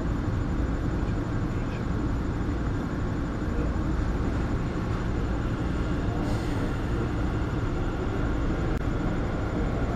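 Steady low rumble of an elevated metro train running, heard from inside the carriage, with a short hiss about six seconds in.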